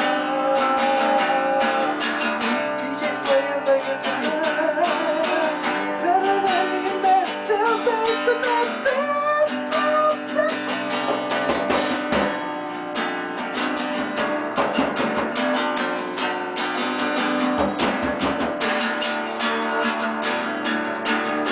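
Guitar jam at full volume: fast strummed chords, with a wavering melodic line played over them.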